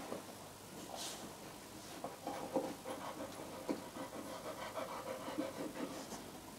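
Beagle gnawing a bone: a run of short, irregular scraping chews, several a second, starting about two seconds in.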